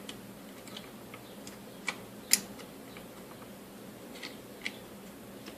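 A few sharp clicks and light taps from the plastic and metal parts of an opened Arrow ET2025 electric stapler being handled, the loudest about two and a half seconds in, with two softer clicks near the end.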